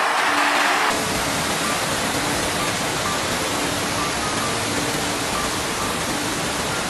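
Loud, steady rush of water, its character changing abruptly about a second in, with faint music underneath.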